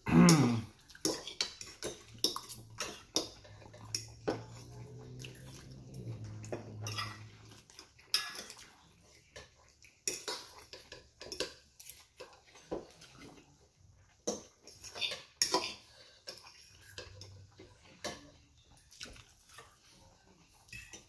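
Metal fork scraping and clinking against a ceramic plate as food is gathered up, in many sharp irregular clicks. There is a short low vocal hum right at the start and a longer one about four to seven seconds in.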